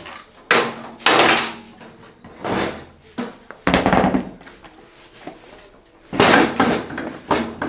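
Separate knocks, clunks and metal clatter as the rear wheel of an MV Agusta F3 is worked off its single-sided swingarm hub and handled back into place, with the loudest run of knocks near the end.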